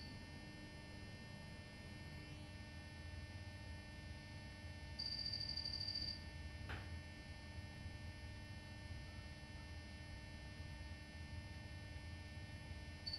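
Mica2 mote's sounder giving a time-of-flight ranging beep: one steady high-pitched tone about a second long, about five seconds in, and another starting right at the end, over a steady background hum. A single short click follows the first beep.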